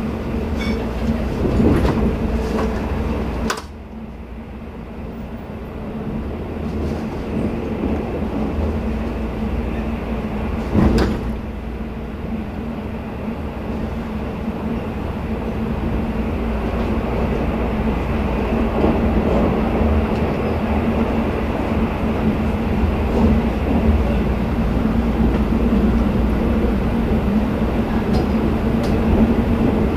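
Running noise inside a sleeper express coach moving at speed: a steady rumble of wheels on rails with a constant low hum. It drops suddenly about three and a half seconds in, then builds back up, with one sharp knock about eleven seconds in.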